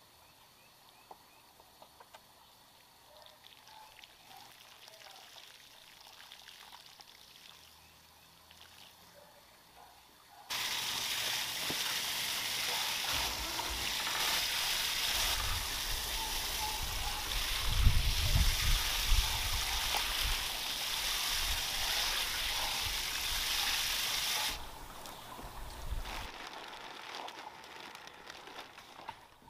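Garden hose watering wand spraying water onto potting soil in containers: a steady hiss that starts suddenly about ten seconds in and shuts off just as suddenly some fourteen seconds later, with low rumbling under it.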